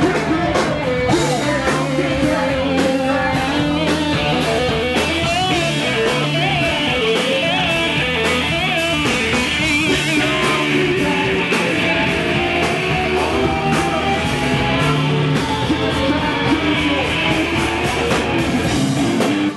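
Live funk and hip-hop band playing loud through a club PA: electric bass, guitar and drum kit, with a rapper's voice on the microphone. The music cuts off suddenly at the very end.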